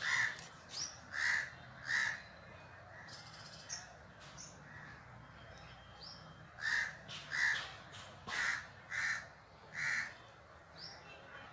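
Crow cawing repeatedly: three harsh caws in the first two seconds, a pause, then a run of five more caws from about seven to ten seconds in. Faint higher bird chirps come in between.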